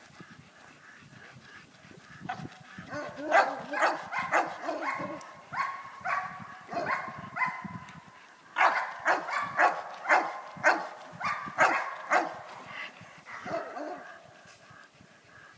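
A German shepherd barking repeatedly while held back on its lead, about two barks a second. The barking starts about two seconds in, breaks off briefly in the middle and tapers off near the end.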